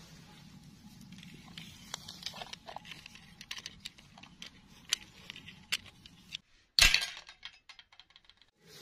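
Small plastic dolls and their rubbery snap-on dresses being picked up and handled over grass: light rustling with scattered small clicks. About two-thirds of the way through, the outdoor background drops out and a single sharp clack sounds, followed by a few faint ticks.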